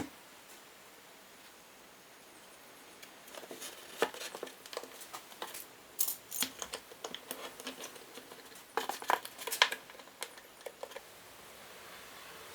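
A run of light, irregular clicks and knocks in two clusters, as of small hard objects being handled, with quiet room tone before them.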